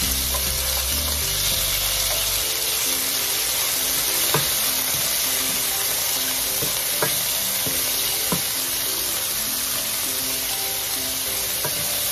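Sliced fermented pork sausage (naem) sizzling in hot oil in a stainless steel frying pan and stirred with a wooden spatula, a steady frying hiss with a few sharp clicks.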